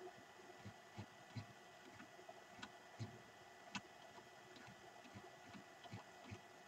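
Faint, irregular clicks of a computer mouse and its scroll wheel, about two a second, while a document is scrolled.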